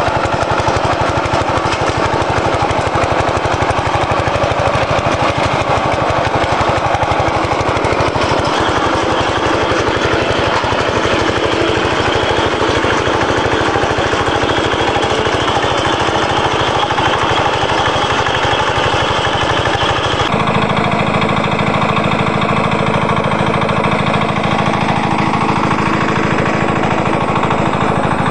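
Tractor engine running steadily under load, driving a rear-mounted rotary tiller through soil, with a rapid pounding beat. About twenty seconds in the sound shifts abruptly to a deeper, duller tone.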